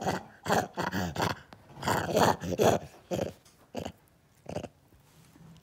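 Vervet monkey calling: a rapid run of short pitched calls, thinning after about three seconds to a few spaced calls.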